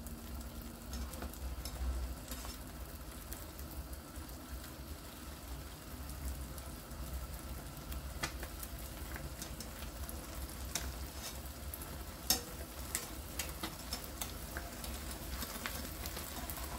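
Egg and bread frying in butter in a non-stick pan: a steady sizzle as the egg sets before it is flipped. A few light clicks of a slotted spatula against the pan are scattered through the second half.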